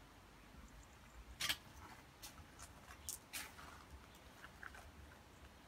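Faint footsteps on a paved path: a handful of short, irregular scuffs and clicks, the first one about one and a half seconds in the loudest, then a few lighter ticks.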